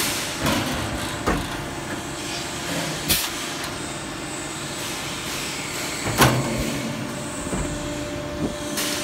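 Sheet-metal HVAC duct manufacturing line running: a steady machine hum broken by four sharp metallic clanks, the loudest about six seconds in.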